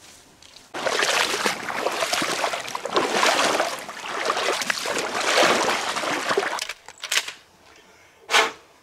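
Water splashing and sloshing for about six seconds, as of wading or moving through shallow water, then two short splashes near the end.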